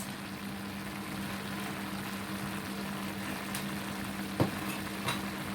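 Pan of chicken, broccoli and carrots cooking on the stove with a steady hiss, over a constant low hum. A single sharp click, like a utensil against the pan, about four and a half seconds in.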